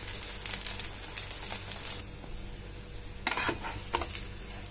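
Oil sizzling and crackling under oat-and-potato tikkis shallow-frying in a flat pan, thinning out about two seconds in. About three seconds in, a steel spatula scrapes and clicks against the pan as it slides under a tikki to flip it.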